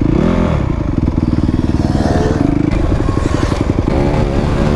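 Dirt bike engine running and revving, its pitch rising and falling repeatedly as the throttle is blipped and rolled on and off.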